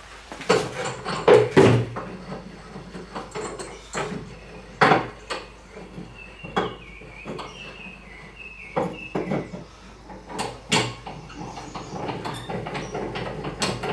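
Irregular knocks and clunks of a steel axe head and tools being handled on a workbench and clamped in a bench vise, with the loudest knocks in the first two seconds and again about ten seconds in.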